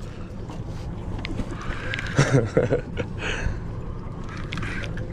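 Boat motor running steadily under a haze of wind and water noise, with a brief voice about two seconds in.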